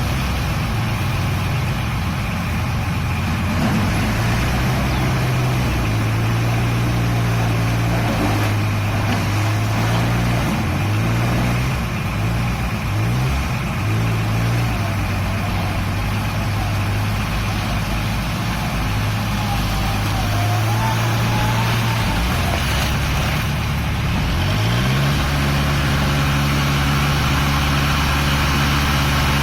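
Case N-series backhoe loader's diesel engine running. Its speed shifts up and down several times, then rises to a higher, steady speed about 25 seconds in.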